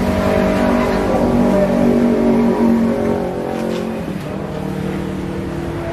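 A motor vehicle engine running close by on the street, a steady low hum that fades away about four seconds in, over general traffic noise.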